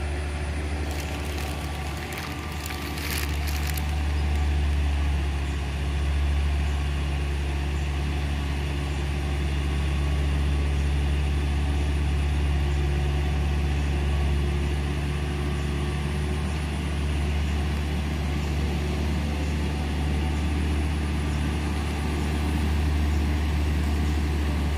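Loaded truck's diesel engine labouring steadily at low revs as it crawls up a steep, wet hairpin climb. There are a few short hisses near the start.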